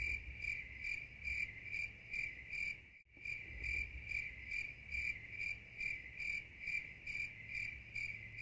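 Cricket chirping sound effect, a steady high chirp repeating about three times a second, dubbed in as the 'crickets' gag for an awkward silence. It breaks off for an instant about three seconds in and stops abruptly at the end.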